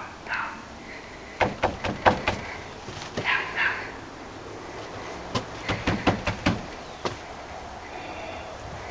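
Fist knocking on a wooden door in quick bursts of several knocks, about a second and a half in and again from about five seconds in. A dog barks briefly near the start and again about three seconds in.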